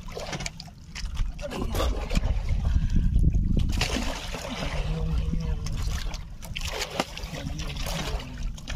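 Sea water sloshing and splashing against a small fishing boat's hull, over a steady low rumble.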